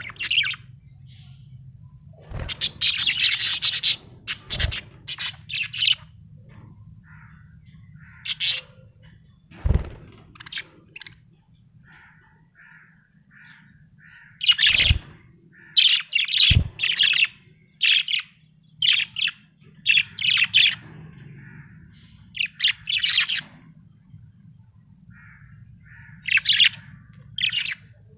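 Budgerigar chirping in bursts of rapid high chirps with short pauses between, over a faint low hum. A few knocks come in among the chirps, about ten, fifteen and sixteen seconds in.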